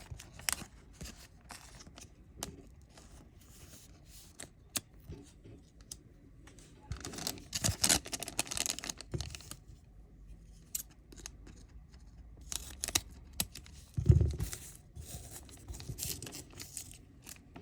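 Trading cards and their foil pack wrapper being handled: scattered sharp clicks of cards flicked and slid against each other, a stretch of crinkling and rustling about halfway through, and a dull thump a few seconds later.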